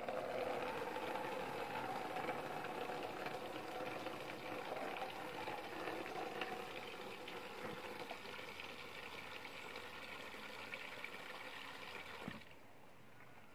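Water running from a garden tap into a plastic basin, splashing steadily and growing softer as the basin fills. It cuts off suddenly near the end when the tap is closed.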